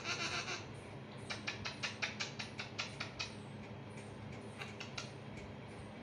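Parakeet making a short raspy hiss, then a rapid run of dry clicks, about six a second for some two seconds, with a few more clicks later.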